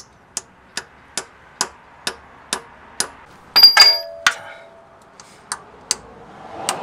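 Light hammer taps, about two a second, driving a new manual spigot bush into the back of an RB25 crankshaft. A little past halfway a few harder metallic clangs ring out, then the steady tapping resumes.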